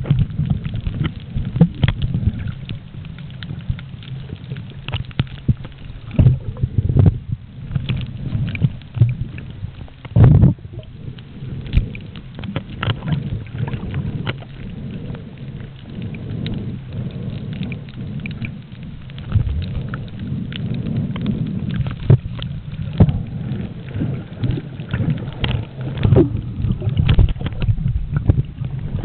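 Underwater sound picked up by a camera moving through the sea: a muffled low rumble of water churning around the camera, with frequent irregular clicks and crackles and a louder knock about ten seconds in.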